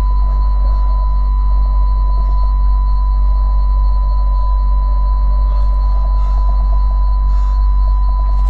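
Film sound design of deafened, ringing ears: a steady high-pitched tone over a loud, deep rumble.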